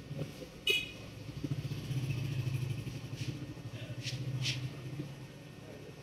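A motor vehicle's engine passing, heard as a low buzzing hum that swells from about a second and a half in and fades near the end. A short high-pitched chirp sounds just before it, and a few faint clicks.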